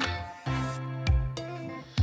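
Background pop music: an instrumental backing with a drum beat and held bass and keyboard notes, between sung lines.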